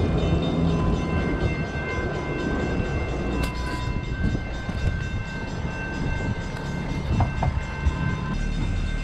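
Small boat's outboard motor running steadily, a low rumble with a constant whine over it, with a few sharp knocks about three and a half and seven seconds in.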